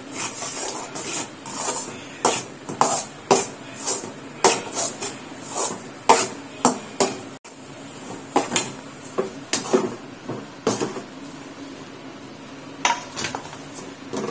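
Metal spatula scraping and clanking against an aluminium kadai, with a steel plate knocking on its rim, as rice flour is stirred into boiling jaggery syrup. The knocks come irregularly, sometimes several a second.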